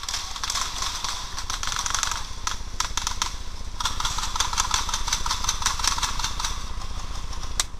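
Paintball markers firing in fast strings of sharp pops, shot after shot with hardly a break.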